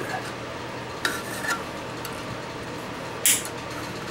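Small handling sounds of hands working among the wiring and parts inside an old tube radio's metal chassis: a couple of light scrapes about a second in, then one sharper click or rustle a little after three seconds.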